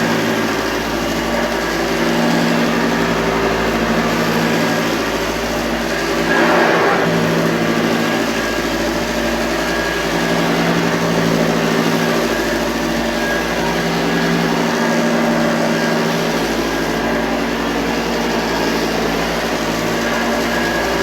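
1985 Hoover Junior Dirtsearcher U1206 upright vacuum cleaner running steadily, its motor and beater-bar brush making a loud, even whine. There is a brief louder swell about six and a half seconds in.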